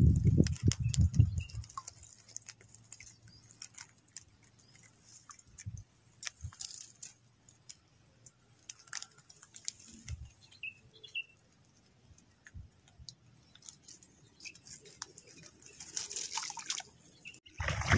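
Scattered light clicks, taps and drips from a wire-mesh crab trap with a crab inside as it is held and handled by the water, after a few loud low thumps at the start. A faint steady high tone runs underneath.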